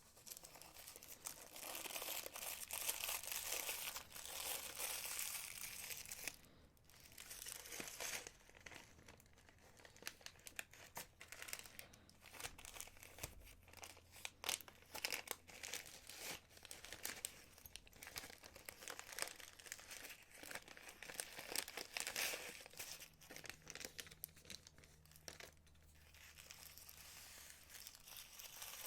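Packaging crinkling and rustling in irregular spurts as small jewelry clasps are unwrapped and handled, with scattered short ticks.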